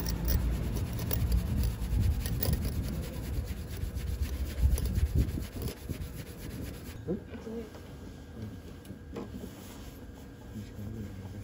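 Small wire whisk beating raw egg into froth in a ceramic bowl: a fast, continuous scraping rattle of the wires against the bowl. The whisking stops about seven seconds in, and it goes quieter.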